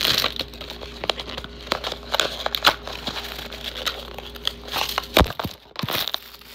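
A plastic blind-bag packet being crinkled and torn open by hand close to the microphone, with scattered small clicks of handling and two louder knocks near the end.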